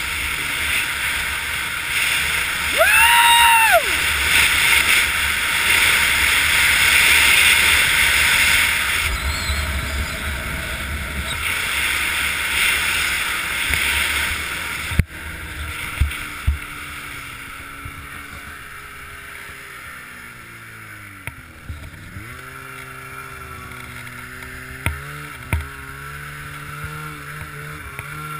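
Polaris Dragon 800 two-stroke snowmobile running while ridden over snow, with a short rev that rises and falls about three seconds in. About halfway through it gets quieter and settles to a lower engine note that dips and picks up again as the sled slows down.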